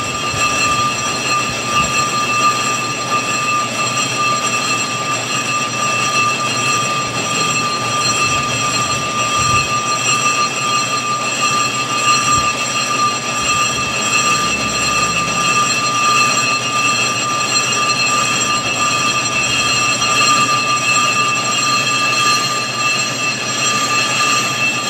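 Toyota Fortuner brake rotor spinning on a metal lathe while the cutting tool skims its face, giving a steady high-pitched ringing squeal over the machine's running.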